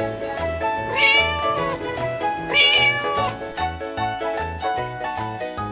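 A domestic cat meowing twice, each meow under a second long, over background music with a steady beat. After about three seconds in, only the music continues.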